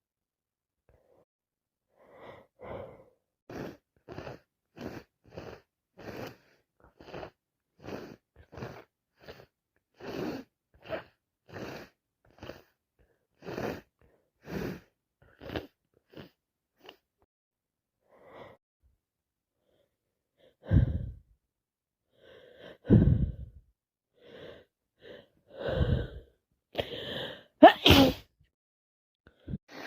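A woman with a cold taking a long run of short, quick breaths, then sneezing several times, with the loudest sneeze near the end.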